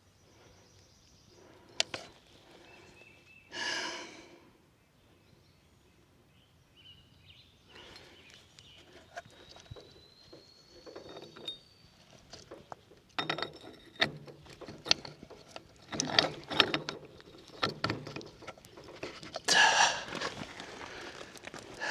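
Metal clicks and knocks as a PTO quick-connect coupler is worked and pushed onto a tractor's PTO shaft, growing busier in the second half, with a couple of loud breaths from the struggling man.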